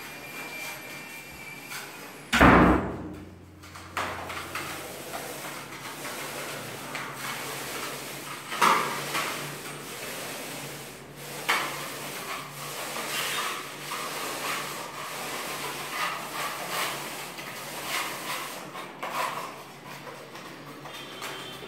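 Paint roller on a long extension pole worked up and down a plastered wall, an irregular rolling, scraping swish. A loud knock comes about two seconds in, and a few sharper clacks come later.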